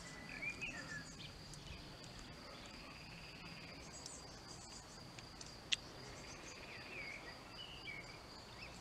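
Faint countryside ambience: insects trilling steadily at a high pitch, with a few short bird chirps about half a second in and again near the end. One sharp click sounds a little past the middle.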